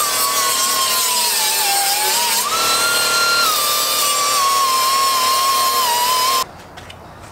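Small right-angle grinder with a sanding disc grinding down weld on sheet steel, its whine sagging and rising in pitch as the disc is pressed and eased off. It stops abruptly near the end.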